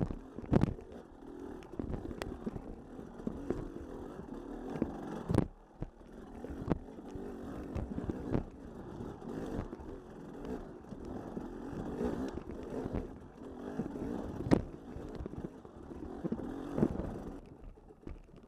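An off-road vehicle running over a rough trail, its engine rumble rising and falling, with clatter and a few sharp knocks from the ride. The rumble fades out shortly before the end.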